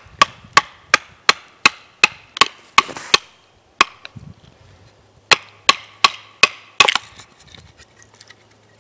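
Knife being batoned down through a small upright stick on a wooden stump: a wooden baton knocks the knife's spine about three times a second, a run of about nine strikes, a pause, then about five more. Each knock has a short ring.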